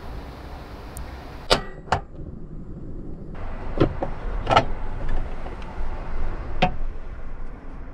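Steady outdoor hum with two sharp knocks close together about a second and a half in, then a few clicks and clanks of a hinged double-sided frying pan being handled and opened on a gas hob.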